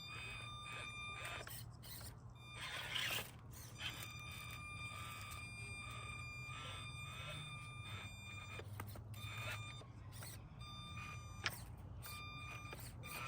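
Axial SCX24 Deadbolt micro RC crawler's electric drive motor whining in stops and starts as the throttle is worked, a high tone wavering with load as it climbs a hill. Scrapes and clicks of the tires and chassis on rock come through, with one sharp click near the end.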